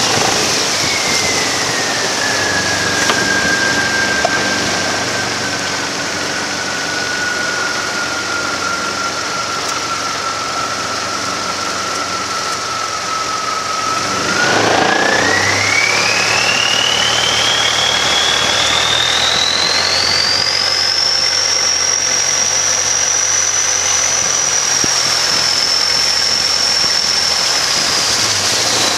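Boat engine running with a whining note. The whine falls in pitch over the first couple of seconds and holds low. About halfway through it gets louder and climbs steadily as the engine revs up, then stays high.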